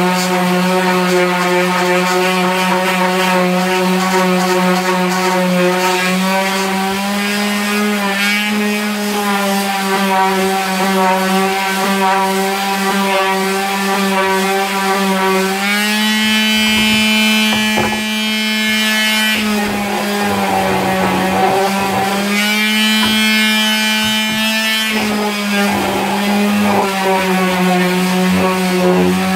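Parkside electric detail sander with a triangular pad running against a wooden beam, sanding it. It gives a loud, steady, buzzing hum that rises slightly in pitch twice in the middle for a few seconds, with some scattered clicks.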